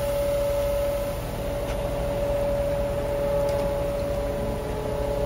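Loader engine running steadily with a constant whine, over a hiss of polyhalite fertiliser granules pouring from the bucket into a fertiliser spreader's hopper.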